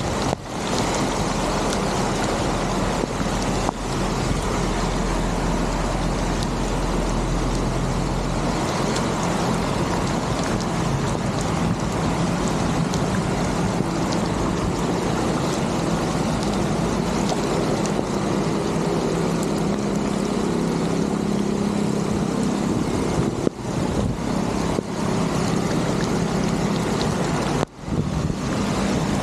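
Water rushing steadily through a culvert that has just been cleared of trash, with heavy rain: a loud, continuous noise with a low hum underneath, broken by a few brief dropouts.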